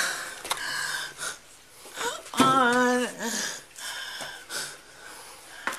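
A woman sobbing in distress: wheezing, gasping breaths, with one drawn-out crying wail about two and a half seconds in.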